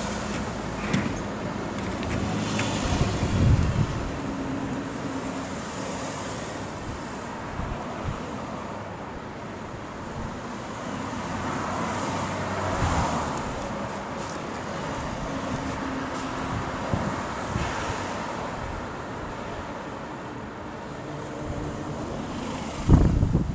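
A motor running steadily, with wind noise on the microphone.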